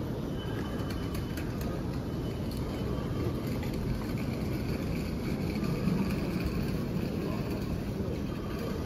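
Steady ambience of a large, busy indoor hall: a low continuous rumble and hum with faint, indistinct voices in the background.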